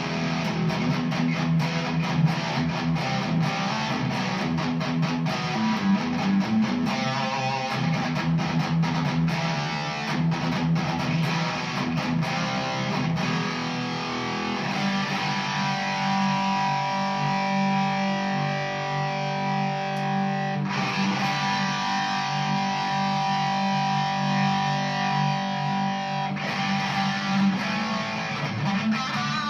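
Overdriven electric guitar played through an all-tube Gunslinger Mark III amplifier into a 1x12 cabinet with a Celestion Cream speaker. Quick, percussive picked and palm-muted riffing gives way about halfway through to held chords ringing out. It is a crunchy distortion meant to sound like a boosted vintage Marshall rather than high gain.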